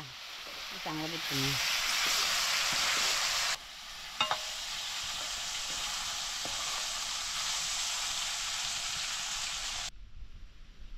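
Cubed chayote sizzling in hot oil in a wok as it is stirred with a metal ladle: a steady hiss, with a short voice about a second in and a metal clink near four seconds. The sizzling cuts off suddenly near the end.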